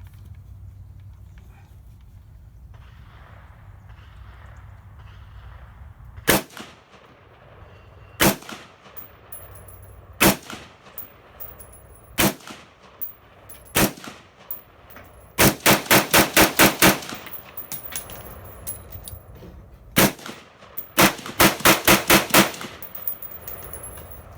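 Colt AR-15 rifle firing .223 Remington. About six seconds in, five single shots come roughly two seconds apart. Then comes a fast string of about nine shots, one more single shot, and a second fast string of about eight.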